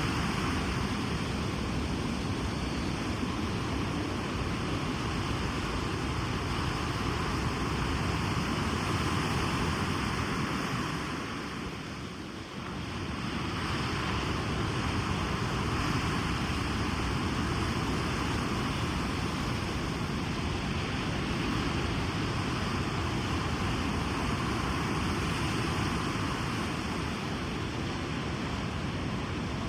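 Ocean waves breaking and washing onto a beach, a steady rush of surf that eases briefly about twelve seconds in and then builds again.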